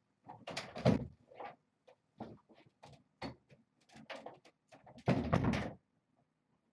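A run of short knocks and clatters, ending in a louder thump about five seconds in.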